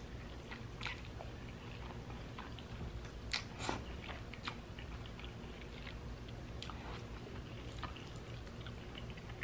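A person eating spaghetti: soft wet slurping of noodles and chewing, with scattered small mouth clicks. The loudest is a pair of clicks about three and a half seconds in. A faint steady low hum runs underneath.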